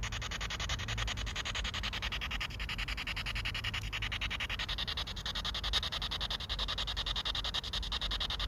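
Spirit box radio sweeping through stations: hissing static chopped into rapid, even pulses, about ten a second. A thin steady tone joins about halfway through.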